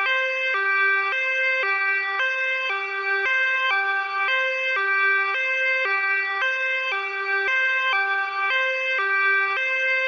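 Ambulance two-tone (hi-lo) siren, switching steadily between a high and a low note about twice a second.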